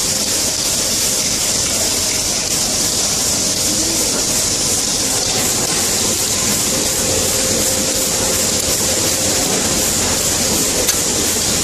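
Steady hiss with a faint hum: workshop background noise.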